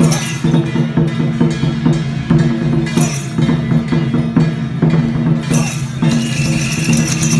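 Music with drums and wood-block percussion keeping a regular beat over low repeated notes.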